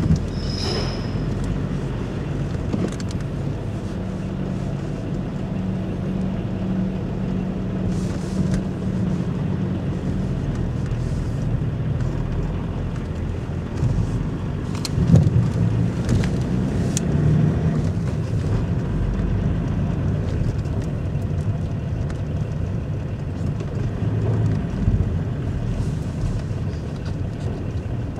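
Car engine and tyre rumble heard from inside the cabin while driving slowly off a ferry's vehicle deck and over the linkspan, with a few clicks and a louder thump about halfway through.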